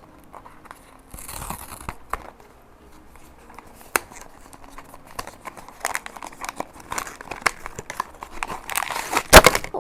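Packaging handled by hand: a small cardboard blind box being opened and its foil blind bag crinkling, with scattered clicks and taps. The rustling grows busier in the second half, with the loudest crinkle just before the end.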